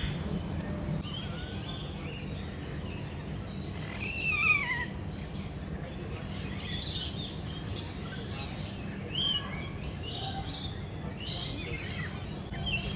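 Lorikeets calling: scattered shrill chirps and short screeches, the loudest a descending call about four seconds in, over a steady low background hum.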